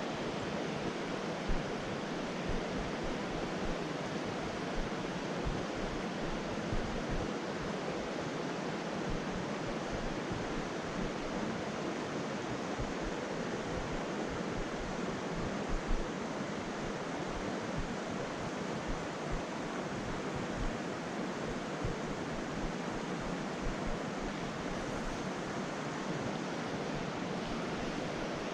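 Steady rush of flowing river water, with wind buffeting the microphone in uneven low gusts.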